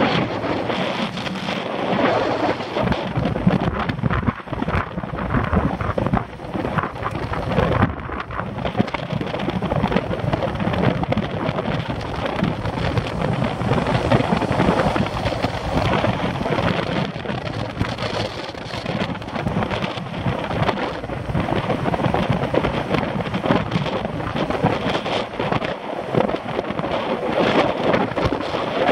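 Wind buffeting the microphone of a bicycle-mounted camera moving at about 20 mph: a loud, gusting rush that rises and falls without a break.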